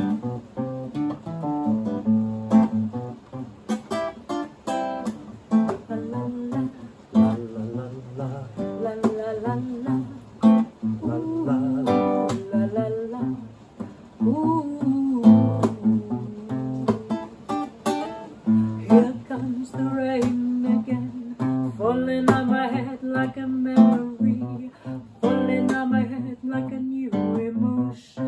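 Nylon-string classical guitar strumming and picking chords, with a woman's voice singing along, clearest in the second half.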